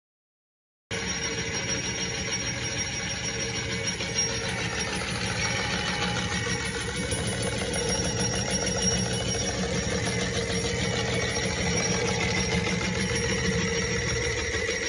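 Western Union 2-B printer running under its electric motor: a steady mechanical whir with a dense, fine clatter from the mechanism. It starts abruptly about a second in.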